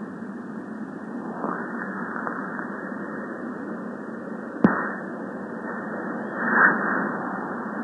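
Dinosaur sound effect: a muffled, noisy rumble that swells twice, with a sharp click about four and a half seconds in.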